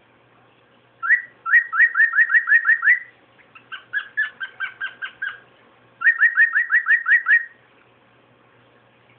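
Cockatiel whistling three quick runs of short, rising notes, about five notes a second, with a brief pause between runs. The middle run is softer.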